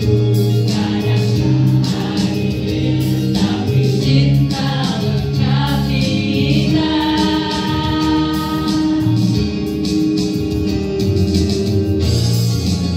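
A group of voices singing together as a choir, holding one long chord for a few seconds about halfway through.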